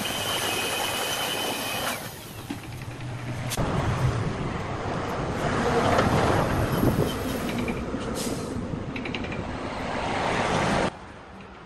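Woodworking power-tool noise: a loud, steady rushing hiss with a high whine over it for the first two seconds. It shifts at a couple of abrupt cuts and stops suddenly about a second before the end.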